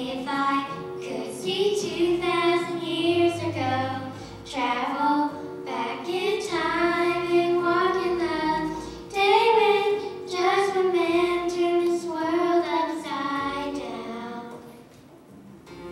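Children singing a song in sustained melodic phrases, easing off near the end.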